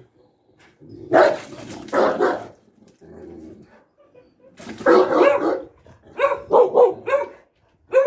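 Large dogs barking in loud bursts, ending in a quick run of about four barks.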